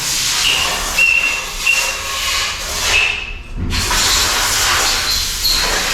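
Cylinder honing machine working an engine block's bores: a steady hissing, scraping noise with a faint high whine, briefly dropping away in the treble a little past halfway.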